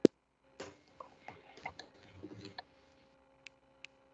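Computer mouse clicks picked up by a call microphone: one loud sharp click at the start, a run of faint knocks and rustles, then two quick clicks near the end. A faint steady hum lies underneath.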